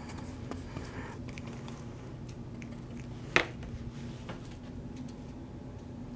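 Wide paintbrush scratching on canvas in short upward strokes, over a steady low hum, with one sharp click about three and a half seconds in.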